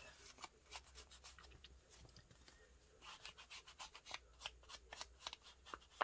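Ink blending tool rubbed and dabbed along the edges of folded scrapbook paper: faint, irregular scuffs and taps of the pad on paper, busier in the second half.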